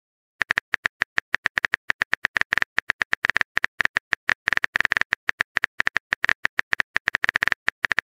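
Phone keyboard typing sound effect: rapid short key clicks, about eight to ten a second, starting about half a second in as a message is typed out.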